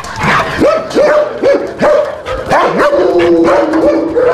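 Several kennelled service dogs barking and yelping in quick succession, with drawn-out whines from more than one dog overlapping in the second half.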